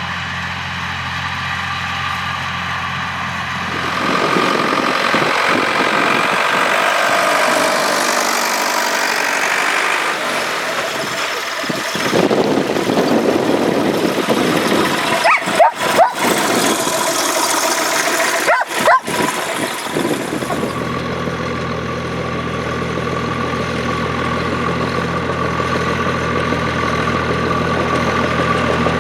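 Volvo BM farm tractor diesel engines running while ploughing: a steady engine hum at the start and again from about two-thirds of the way through, with a rougher, noisier stretch in between broken by two brief dropouts.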